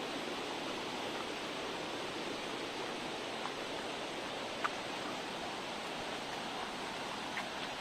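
Steady rush of running water, like a stream or waterfall, with no engine running. A faint short tick a little past halfway.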